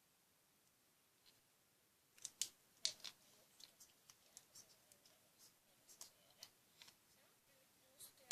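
An irregular run of small, sharp clicks and crackles that starts about two seconds in.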